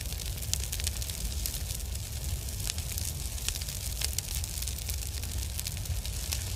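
Fire sound effect: steady crackling over a low rumble.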